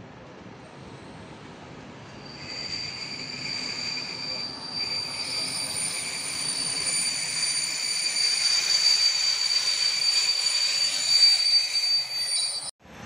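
Czech Railways passenger coaches rolling past slowly with their wheels squealing: several steady high-pitched tones start about two seconds in and grow louder, over a low rumble. The sound cuts off abruptly near the end.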